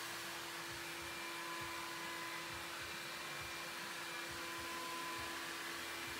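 Steady background hum with an even hiss: room tone, no distinct event.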